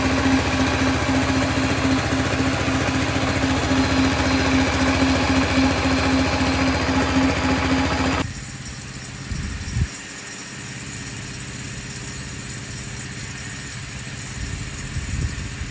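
Small engine running steadily under load, belt-driving a centrifugal irrigation water pump. About eight seconds in it cuts off suddenly to a quieter, steady hiss of a sprinkler spraying water, with a few low thumps.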